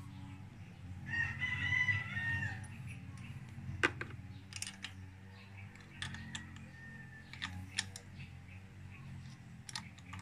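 A rooster crows once about a second in, a call of roughly a second and a half. After it come scattered light metallic clicks from a small wrench working the carburetor's mounting nut, over a steady low hum.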